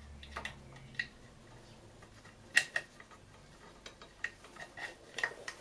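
Light metallic clicks and clinks, irregularly spaced, from Triumph Bonneville five-speed gearbox parts being handled and fitted by hand. The sharpest are a pair of clicks about two and a half seconds in.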